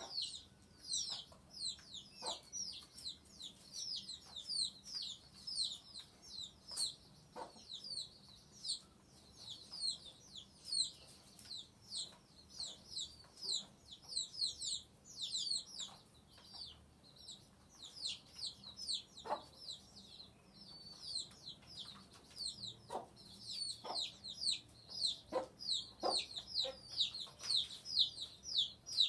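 Chicks peeping: a continuous run of short, high, falling chirps, two to three a second, with a few short clicks scattered among them.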